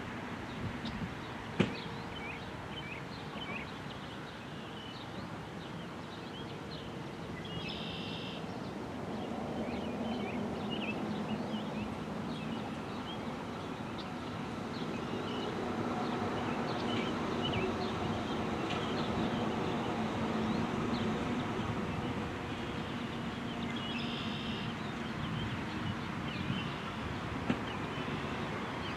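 Outdoor ambience: small birds chirping on and off, with two short buzzy calls, over a steady low hum that swells through the middle. A single sharp tap comes near the start.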